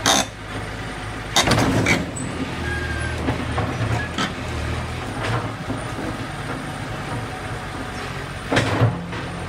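Komatsu PC120 hydraulic excavator's diesel engine running steadily, swelling for a few seconds as the machine works, with loud sudden noises from the machine right at the start, for about half a second around 1.5 seconds in, and again near the end.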